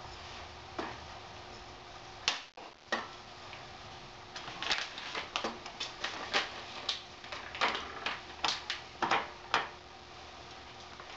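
Sharp metal clicks and knocks as a gas spring's rod is unscrewed from the yoke of a Stryker stretcher with 7-inch vise grips: a couple of louder knocks around two to three seconds in, then a quick run of clicks, about three a second, from about four seconds in until shortly before the end.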